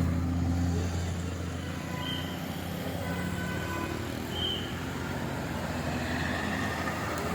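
Engine of a heavy road vehicle running with a low, steady drone, amid road traffic noise.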